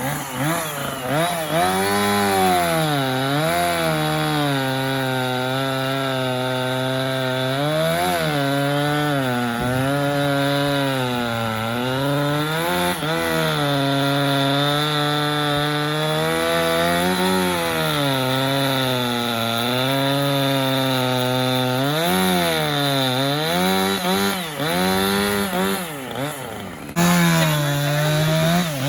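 Chainsaw running near full throttle while cutting into a tree trunk, its engine pitch repeatedly dipping under load and recovering.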